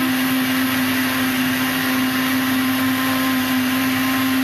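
Countertop electric blender running steadily at a constant pitch, its motor and blades churning a jar of liquid mix.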